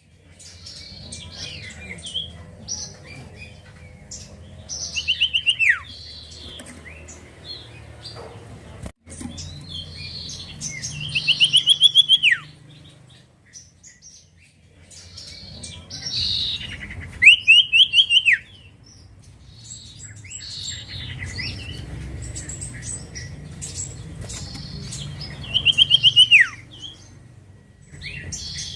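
Common iora (cipoh) singing: four loud phrases of rapid repeated notes, each ending in a steep falling sweep, with softer chirps and whistles between them. A faint low rumble runs underneath.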